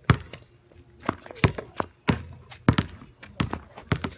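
Basketball bouncing on an outdoor hard court: a string of irregular, sharp bounces, some close together, with a few lighter taps between them.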